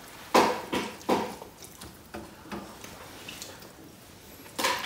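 Scattered clinks and knocks of dishes and cutlery during a meal, about half a dozen short sharp strokes, with a loud one just after the start and another near the end.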